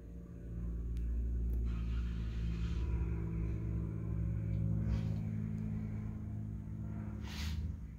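A low, steady mechanical hum and rumble that swells about half a second in, holds, and falls back near the end, with a brief sharp noise just before it drops.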